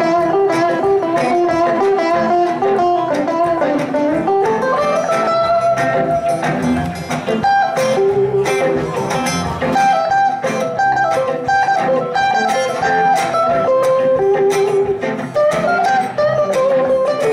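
Several guitars, electric and acoustic, playing live together in an instrumental passage, a lead line bending a note upward about four seconds in.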